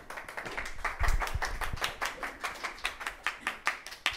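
Audience applauding: many quick, distinct hand claps, about six a second, with a couple of low thumps about a second in.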